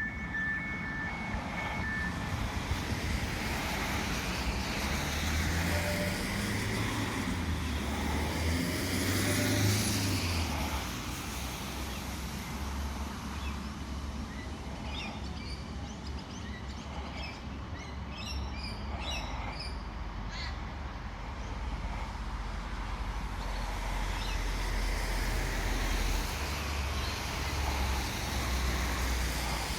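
Parramatta Light Rail test tram running by, its motors whining up in pitch over a few seconds in the first third, over a steady low rumble.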